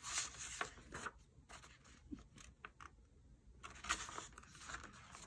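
Paper pages of a picture book being turned by hand, rustling and sliding, in two bouts: one near the start and another about four seconds in.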